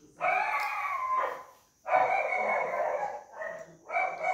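A dog barking in drawn-out calls: two long ones about a second each, then shorter ones near the end.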